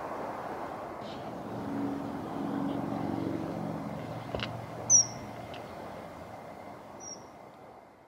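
Two short, shrill, high calls of a common kingfisher, about two seconds apart, the first much louder, over a steady hum of distant engines.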